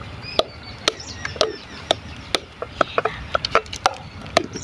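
Metal masher mashing boiled potatoes in a metal pot, knocking against the bottom and sides in sharp, irregular taps, about two or three a second.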